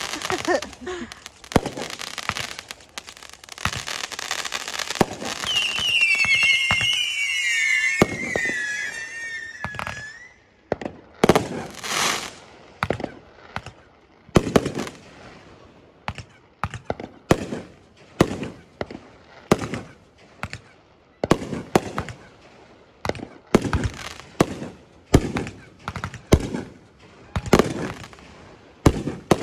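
Fireworks display: a dense stretch of crackling with several whistles falling in pitch, then a run of separate sharp bangs about one a second.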